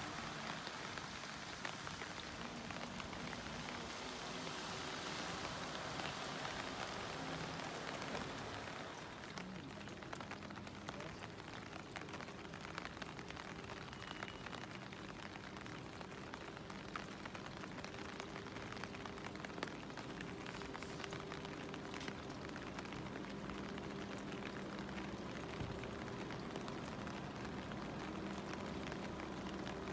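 Heavy rain falling on flooded asphalt, a dense steady hiss that eases slightly about nine seconds in, with a faint low steady hum underneath.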